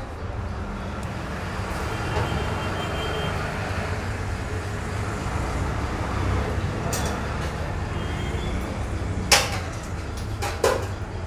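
Knife cutting raw chicken breast on a stone grinding slab, the blade clicking sharply against the stone a few times near the end, over a steady low background rumble.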